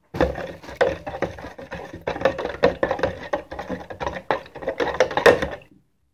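Metal spoon stirring borax into water in a glass jar, rapid clinking and scraping against the glass, stopping shortly before the end.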